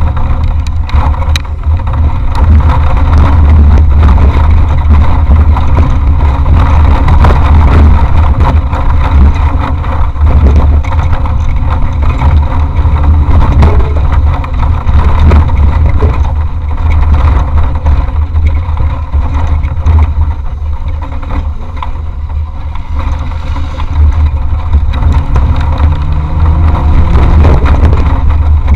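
Off-road race vehicle driven hard over rough terrain, heard on board: a loud engine with a heavy low rumble, with frequent knocks and rattles from bumps.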